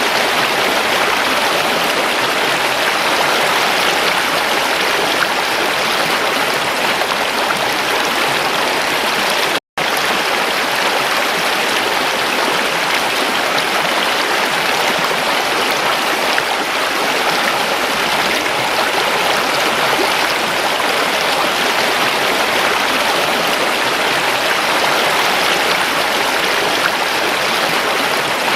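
Water of a stream running, a steady rush that cuts out for an instant about ten seconds in.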